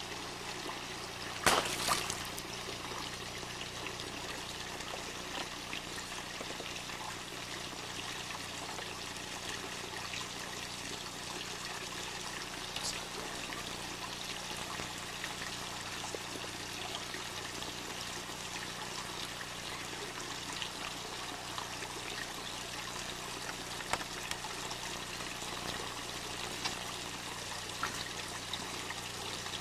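Water trickling and pouring steadily into a swimming pool. About a second and a half in there is a brief splash as a paperback book hits the water.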